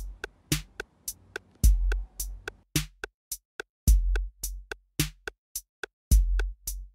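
Background music: a sparse drum-machine beat of crisp ticks several times a second, with a deep kick drum about every two seconds.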